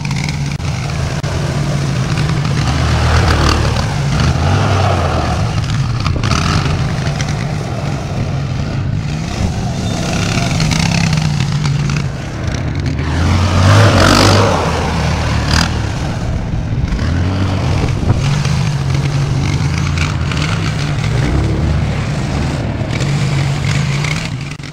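Quad bike engine running as it is ridden on ice, rising and falling with the throttle. The loudest surge comes about fourteen seconds in.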